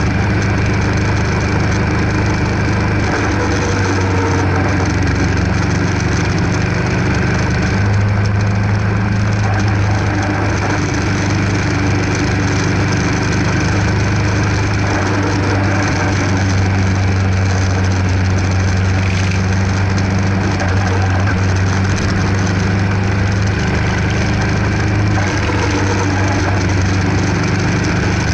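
Kawasaki EN500 Vulcan's parallel-twin engine running at cruising speed, a steady low drone that shifts pitch a few times, with wind and road noise over it.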